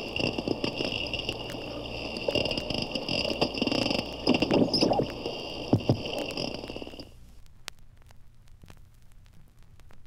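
Bottlenose dolphins' rapid underwater click trains picked up by a hydrophone, a dense run of clicks over a steady high tone, cutting off about seven seconds in; only faint scattered ticks follow.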